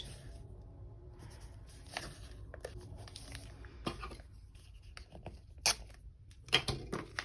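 Washi tape being pulled from the roll, torn and pressed onto a paper planner page: soft rustling of paper and tape with a few sharp ticks in the second half.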